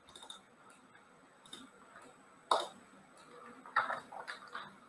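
A few faint computer mouse clicks, the loudest about two and a half seconds in and a quick run of small clicks near the end, as a video is started on screen.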